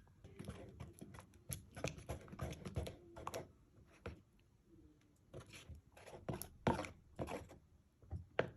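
A utensil stirring a mix of glue and water in a bowl, making irregular clicks and short scrapes against the bowl.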